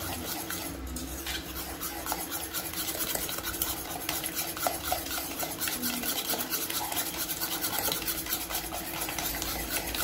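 Metal hand whisk beating egg-and-powdered-sugar batter in an enamel pot: a fast, steady run of scraping clicks as the wires hit the sides and bottom of the pot.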